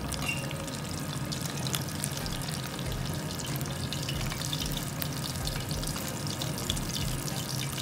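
Breaded chicken pieces being re-fried in hot oil: a steady sizzle with constant fine crackling.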